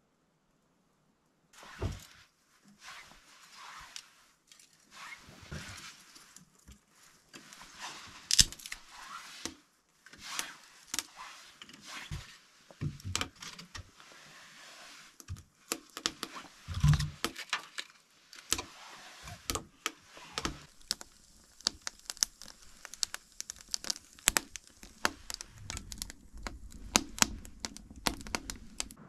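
Irregular clinks, knocks and rustling of objects being handled, starting about two seconds in and growing busier toward the end.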